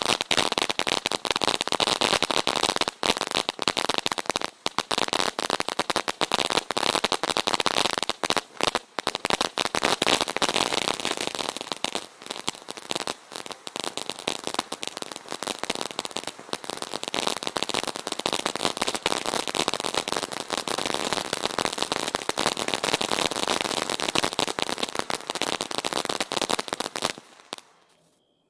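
Fantasy Reality 500 g fireworks fountain burning: a dense, continuous crackling over a hissing spray of sparks, which dies away to silence near the end.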